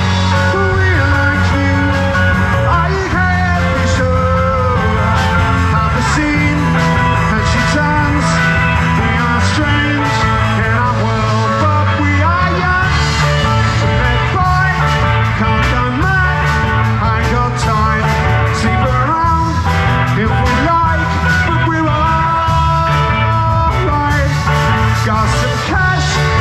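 Live rock band playing: a man sings lead over electric guitars and drums.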